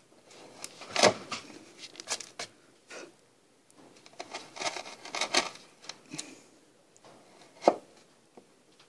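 Wood chisel pushed by hand, paring and slicing into a wooden board: irregular short scraping cuts with a couple of sharper clicks, about a second in and near the end.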